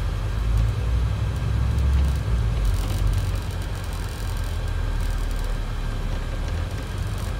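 Scania double-decker bus engine and drivetrain running as the bus drives along, heard inside the upper deck as a steady low rumble with road noise.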